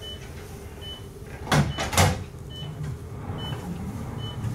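Wheeled hospital overbed table being rolled and shifted across the floor, with a low rumble and two loud scraping knocks about one and a half and two seconds in. A patient monitor beeps a short high tone about once a second.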